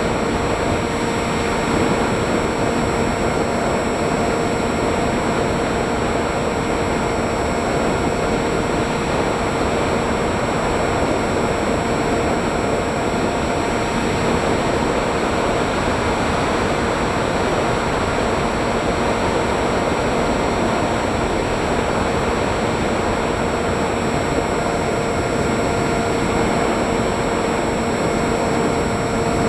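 Radio-controlled FPV aircraft's motor and propeller heard from the onboard camera: a steady whine over rushing air noise, holding an even pitch throughout.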